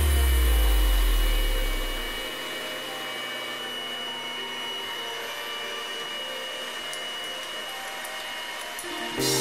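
Electric hand mixer running steadily, its beaters whisking oil into egg yolks as the mayonnaise emulsifies. A low background-music tone fades out over the first two seconds.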